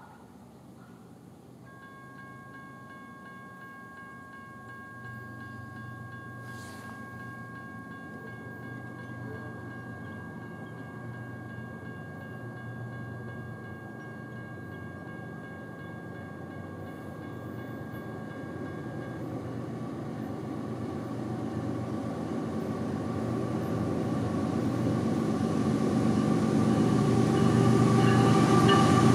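CSX diesel freight locomotives approaching, a low rumble that grows steadily louder toward the end. From about two seconds in until about two-thirds of the way through, a grade-crossing warning bell rings steadily.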